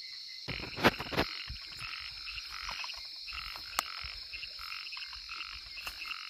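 Small frogs calling, a quick run of short croaks about three a second, over a steady high insect drone. Two sharp knocks sound about a second in.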